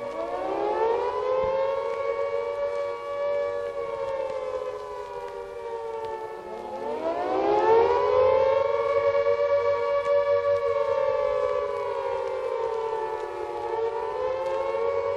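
Air-raid siren wailing. The pitch climbs slowly, holds, then sags; this happens twice, and a third climb begins near the end.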